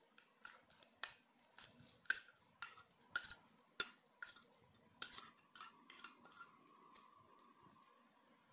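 Steel spoon clinking and scraping against a small stainless steel bowl as chopped nuts are knocked out of it: about twenty sharp, irregular clinks that stop about seven seconds in.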